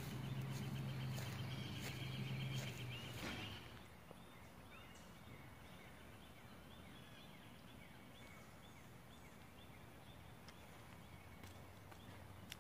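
Outdoor ambience with small birds chirping. A low steady drone runs under it and stops about three and a half seconds in, leaving only the birds.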